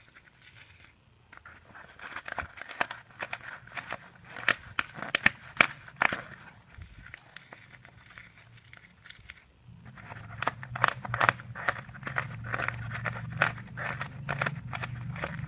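A block of polystyrene foam being crumbled by hand into a bait mix, a dense crackling and crunching of breaking foam beads. It comes in two spells with a lull of about three seconds midway.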